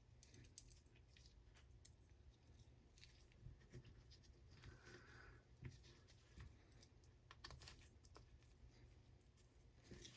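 Near silence with faint, scattered small clicks and light handling noise from an AR-15 bolt's parts being fitted back together by hand.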